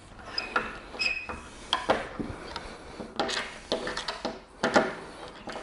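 Bolts being turned into a windsurf foil box with a hand tool: irregular clicks and scraping, with a few short high squeaks in the first second or so.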